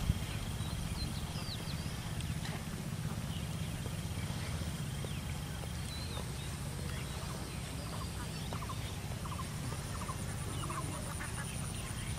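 Outdoor pond-side ambience: a steady low rumble with scattered faint bird calls, including short clustered calls of the kind domestic fowl make, and a faint steady high-pitched whine.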